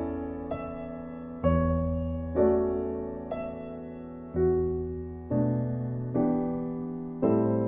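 Background music: slow, gentle piano chords, a new chord struck about every second and left to fade.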